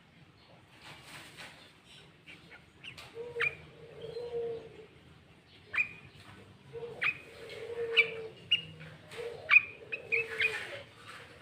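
Sooty-headed bulbul (kutilang) singing: short, sharp downward-sweeping notes in irregular bursts, growing busier after about six seconds, over lower drawn-out notes.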